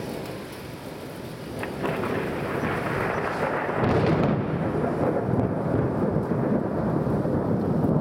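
Thunder rolling from a multicell thunderstorm. It swells about a second and a half in, then grows louder into a long low rumble from about four seconds on.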